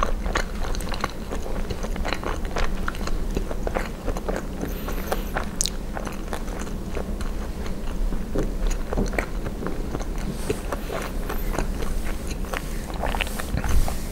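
Close-miked mouth sounds of someone eating poutine (fries, cheese curds and gravy): a steady run of small, irregular wet clicks and crunches from biting and chewing.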